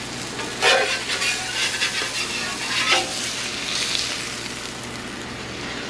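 Blackened redfish fillets sizzling on a hot Blackstone gas griddle. The metal spatula scrapes across the griddle plate twice, about two-thirds of a second in and again near three seconds, as the fillets are lifted off.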